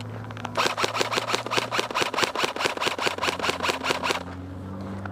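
An airsoft gun firing one sustained full-auto burst of about three and a half seconds, roughly eight shots a second, over the steady low hum of the airsoft APC's engine.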